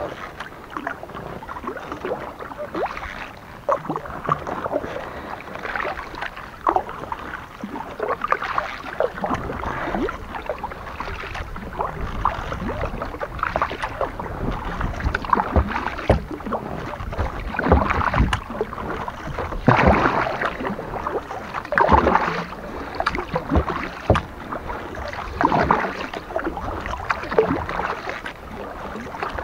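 Kayak paddle blades dipping and pulling through calm water at a slow, even pace, with a splashing stroke about every two seconds.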